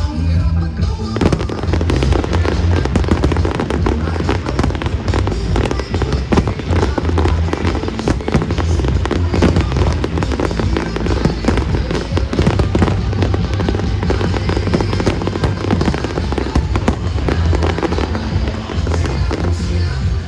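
Fireworks display going off in a dense run of rapid bangs and crackles, starting about a second in, over loud accompanying music with a heavy bass.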